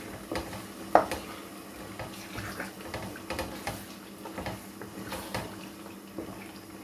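Wooden spoon stirring a thick tomato-and-meat stew in a pot, with wet scraping and scattered knocks of the spoon against the pot; the loudest knock comes about a second in.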